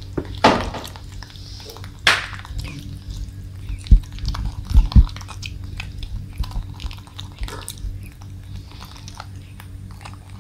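Baby monkeys chewing and biting into pieces of pumpkin: a scatter of small wet smacking clicks, with a couple of sharper sounds and soft low knocks.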